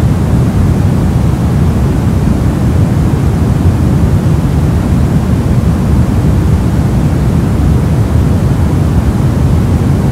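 Soft noise: a steady, deep hiss with most of its weight low down and a dull top.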